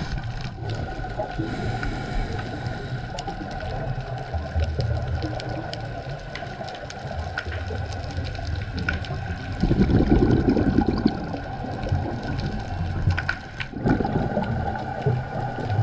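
Underwater sound of a scuba diver breathing through a regulator: a steady low bubbling rumble, with a louder burst of exhaled bubbles about ten seconds in.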